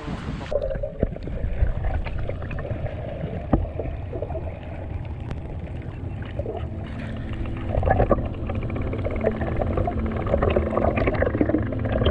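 Underwater sound picked up by a submerged action camera: a muffled low rumble of water and the swimmer's movement with scattered clicks and knocks, the high end cutting off about half a second in as the camera goes under.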